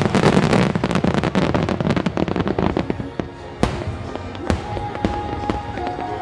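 Large display fireworks bursting in rapid succession: a dense barrage of crackling bangs for about three seconds, then a few single loud cracks. Music plays under the bursts, with held notes in the second half.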